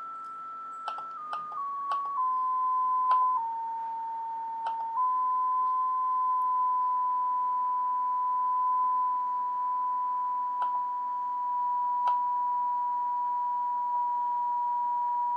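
Steady beep-like beat tone from an RTL-SDR dongle in SDR#'s CW mode, demodulating the unmodulated carrier of an ADF4351 frequency synthesizer near 868 MHz. Its pitch steps down several times in the first few seconds as the tuning is clicked, jumps up a little about five seconds in, then holds steady; faint clicks come with some of the steps.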